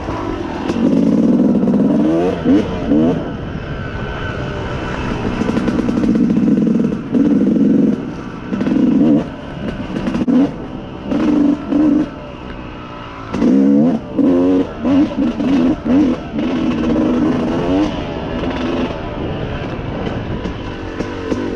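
Yamaha YZ250 two-stroke dirt bike engine being ridden along a trail. The throttle is opened and shut in repeated bursts, so the engine note keeps rising in pitch and dropping back.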